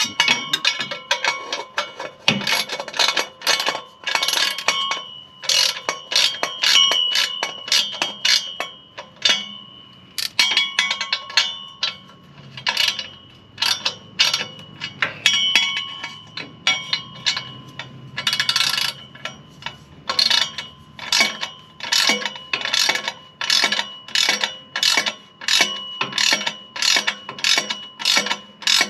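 Ratchet wrench clicking in quick back-and-forth strokes, with a metallic ringing through the clicks.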